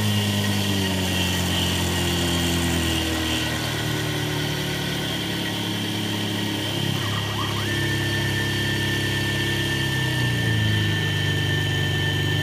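X2 mini mill under CNC control running a surfacing pass, its quarter-inch end mill cutting graphite-impregnated nylon. A steady high whine runs under a lower machine hum whose pitch steps up and down every few seconds as the feed moves the table.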